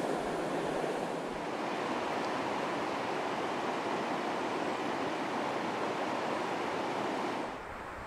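River water rushing over rocks in a shallow riffle, a steady rush. It drops to a quieter rush about seven and a half seconds in.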